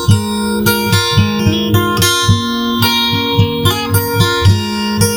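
Instrumental break of an acoustic song: acoustic guitar strumming over a steady beat of low thumps, about four a second.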